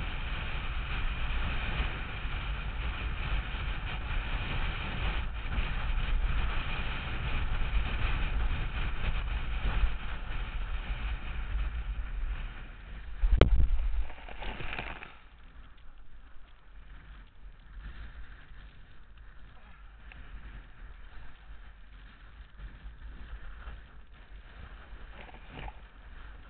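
Wind rushing over the microphone along with the water noise of a board at speed, loud through the first half. About halfway there is a sharp knock, and then the noise drops to a much quieter hiss.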